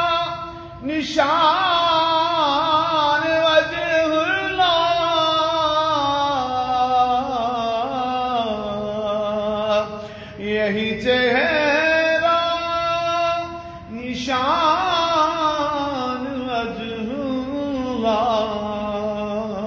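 A man reciting an Urdu naat solo and without accompaniment, singing long held lines with a wavering, ornamented pitch and breaking off briefly for breath three times.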